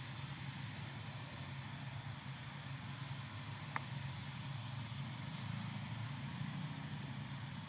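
A steady low mechanical hum, with a single sharp click a little past halfway and a brief high-pitched sound just after it.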